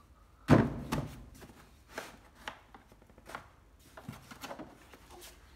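Handling noises of a cordless drill-driver kit: a sharp knock about half a second in, then scattered lighter knocks and clicks as the pieces are moved about.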